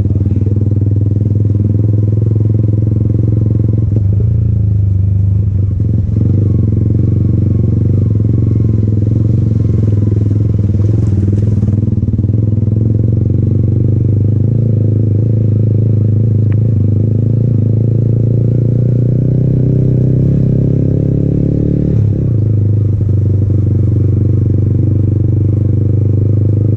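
Yamaha MT-15's 155 cc single-cylinder engine, fitted with an aftermarket Akrapovic exhaust, running at low, steady revs while the bike is ridden. About 22 seconds in the revs drop briefly and then pick up again.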